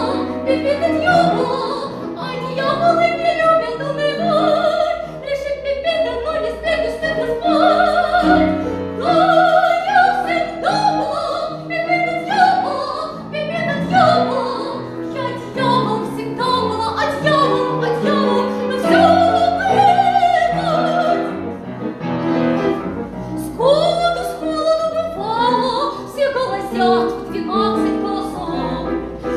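A woman singing in operatic style with wavering vibrato, over instrumental accompaniment.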